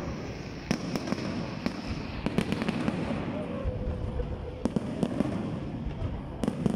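Aerial fireworks display bursting overhead: an irregular string of sharp bangs and crackles over a continuous low rumble.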